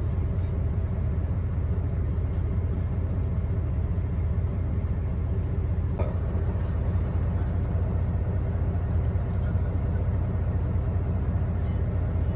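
International log truck's diesel engine running with a steady low drone, heard from inside the cab. A single short click about six seconds in.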